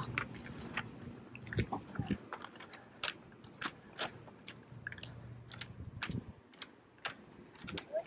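Footsteps on a concrete sidewalk, short light scuffs at walking pace, about two a second.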